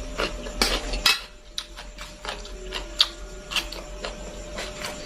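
Close-up chewing of fried chicken on the bone, with irregular sharp crunches and cracks of crisp skin and small bones.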